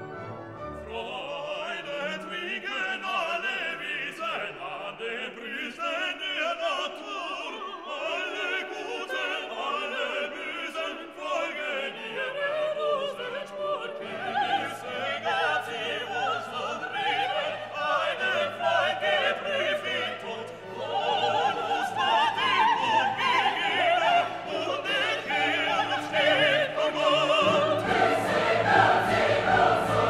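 Background classical music: operatic singing with an orchestra, swelling fuller and louder near the end.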